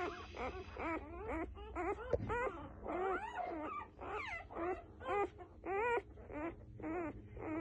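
Newborn F1B standard Goldendoodle puppy whimpering and squeaking, a run of short cries that bend up and down in pitch, several a second. A soft bump about two seconds in.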